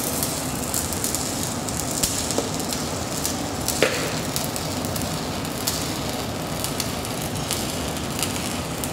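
Stick-welding arc of a 5/32-inch 7018 electrode running at 170 amps as it burns down by itself along the plate: a steady crackling sizzle with a few sharp pops.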